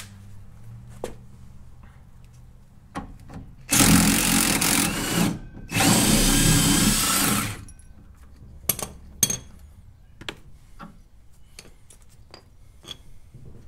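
Cordless impact driver run in two bursts, the second slightly longer, spinning off the lower mounting nut of a worn rear shock absorber. After it come scattered light metal clicks of sockets and tools being handled.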